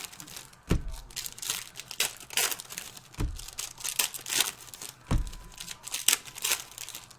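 Panini Select basketball card packs being handled and torn open, their wrappers crinkling in a run of short rustles. A few dull thumps come about a second in, after three seconds and after five seconds.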